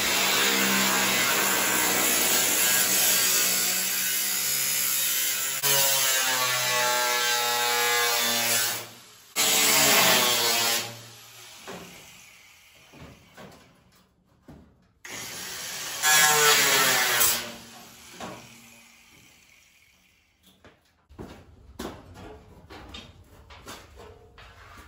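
Angle grinder with a cut-off wheel cutting through the Ford Model A's steel body panel. One long cut of about nine seconds comes first, its whine shifting in pitch under load. Two shorter bursts follow, each winding down, and faint knocks come near the end.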